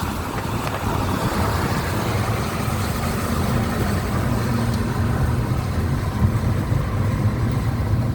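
Steady engine hum and tyre rumble of a moving car, heard from inside the cabin.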